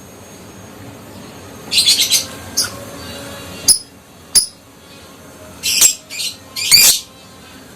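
Adult lovebird giving short, high-pitched calls and chirps one after another, about seven separate calls spaced irregularly across the few seconds rather than one continuous chatter.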